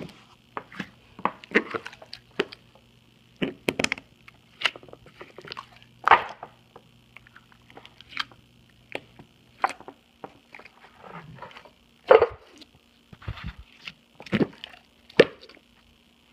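Slime being squeezed and pressed by hand, making irregular wet squelches and short fart-like pops.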